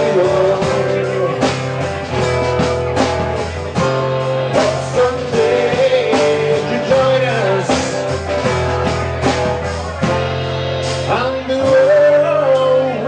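Live band playing a rock song: a man singing over two strummed acoustic guitars and a drum kit keeping a steady beat.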